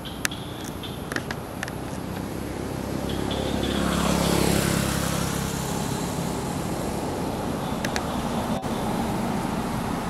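Road traffic noise: a steady rumble and hiss, with a vehicle passing about four seconds in, swelling and falling in pitch as it goes. A few short sharp clicks come through near the start and near the end.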